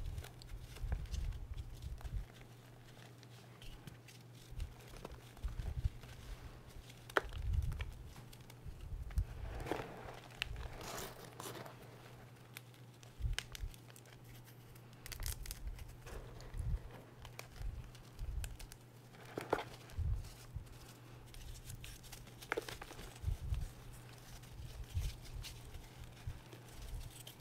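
Hands pressing and crushing gym chalk in a tub of chalk powder: soft crunching and crumbling with irregular dull thumps, and a few sharper crackles as chunks break.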